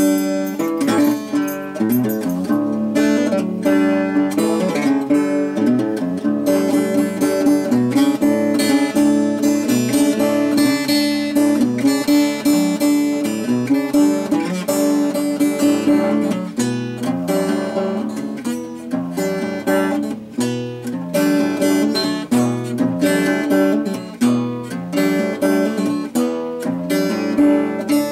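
Acoustic guitar played solo, a continuous run of quickly picked notes with bass notes underneath.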